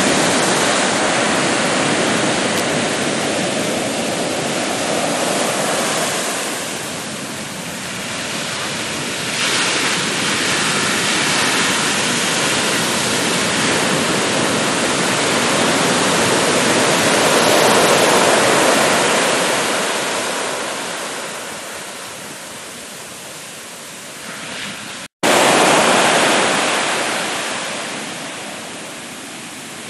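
Ocean waves breaking and washing up onto a sandy beach, the surf swelling and ebbing over several seconds at a time. About 25 seconds in the sound drops out for an instant, then a wave breaks loudly.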